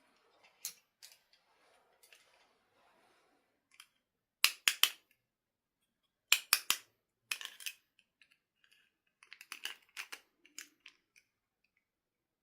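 Small hard objects being handled: sharp clicks and taps in quick clusters, the loudest groups about four and a half and six and a half seconds in, with a run of lighter clicks near the end.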